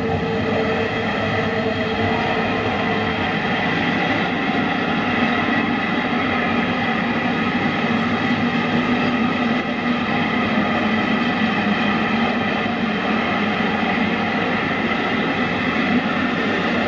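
Model freight train, hauled by a model NSB El 16 electric locomotive, running on layout track: a steady, continuous running sound with several held tones.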